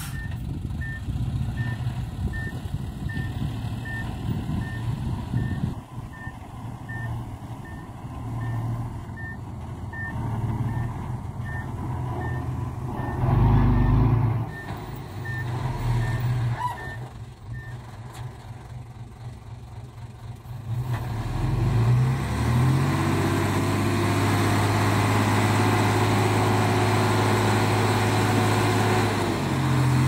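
Loaded dump truck's diesel engine running as it reverses, its reversing alarm beeping a little more than once a second for the first half. A little over 20 seconds in, the engine revs up and holds a steady higher speed as the hydraulic tipper raises the bed to dump the soil, dropping back near the end.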